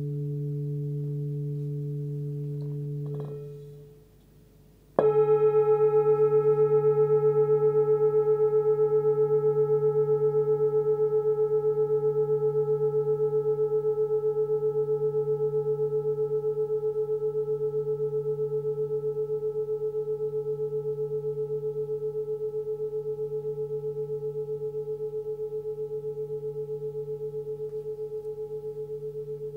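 A 26 cm forged Sun Moon singing bowl tuned to about 146 Hz (D). Its previous ring is damped to near silence about three seconds in; about five seconds in it is struck again and rings long with several steady overtones and a wavering beat, slowly dying away.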